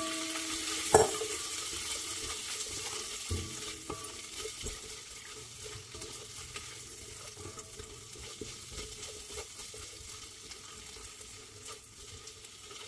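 Shrimp sizzling in butter and garlic in a honeycomb-textured wok, the sizzle loudest at first and slowly dying down as the pan takes the cold shrimp. A spatula knocks against the pan twice in the first few seconds.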